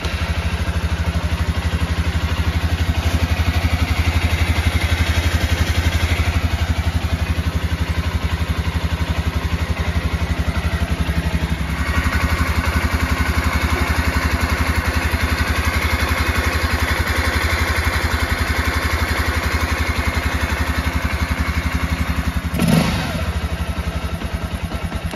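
Honda XR150L's air-cooled single-cylinder four-stroke engine, bored out to 222cc with a 27mm carburetor, running steadily at idle on its first start after the rebuild. Its fuel line is not yet connected to the carburetor. A short thump sounds near the end.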